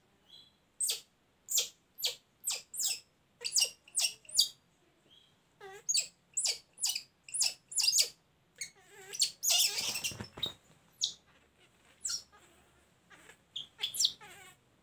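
A baby long-tailed macaque giving a rapid series of short, high-pitched squeals, some falling in pitch, as it fusses at being dressed. A brief noisy burst comes about ten seconds in.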